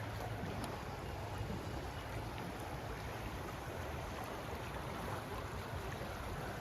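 River water flowing: a steady rushing noise that holds at one level throughout.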